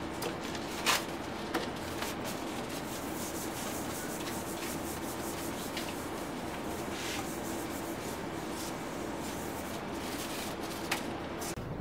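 Paper towel rubbing over the metal bed of an etching press as it is wiped clean with mineral spirits: steady scrubbing with a few brief louder strokes.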